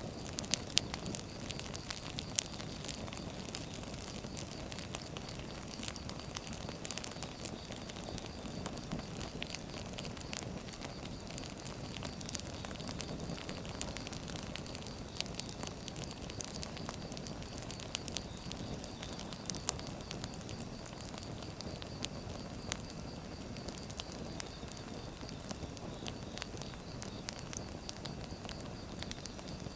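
Wood fire burning: irregular sharp crackles and pops of burning firewood over a steady low rumble of flames.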